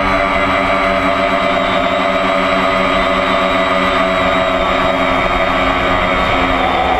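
Electric motor and propeller of a radio-controlled model airplane running steadily in flight, heard from a GoPro mounted on the plane, with a low wind rumble under the steady whine.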